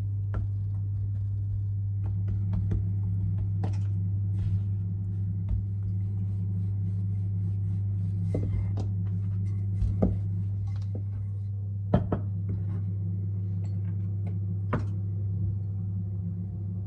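Bread dough being shaped by hand and rolled out with a wooden rolling pin on a countertop, giving scattered knocks and taps of the pin and hands against the counter, the sharpest two about ten and twelve seconds in. A steady low hum runs underneath throughout.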